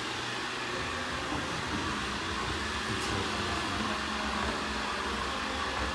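Ecovacs Deebot N79W robot vacuum running steadily, its suction motor and brushes making an even whir.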